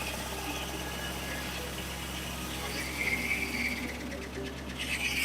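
1950 Corley sawmill running steadily, its engine giving a constant low hum with a higher band of sound above it.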